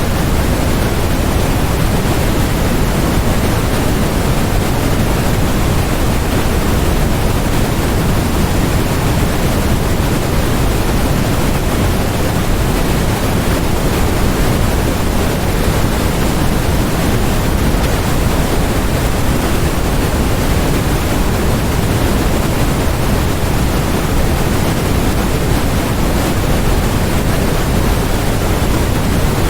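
Steady generated noise of the kind sold as white noise for focus: an even, unbroken hiss with no change at all, fuller in the low end than the high.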